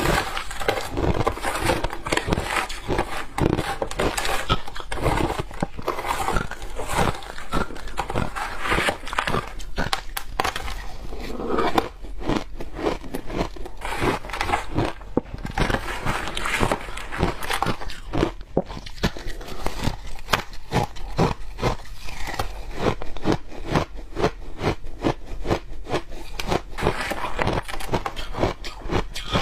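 Close-miked biting and chewing of powdery shaved ice: a dense, unbroken run of crisp crunches and crackles, many a second.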